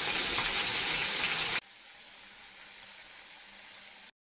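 Prawns frying in hot oil in an iron kadai, a steady loud sizzle. About a second and a half in it drops abruptly to a faint steady hiss.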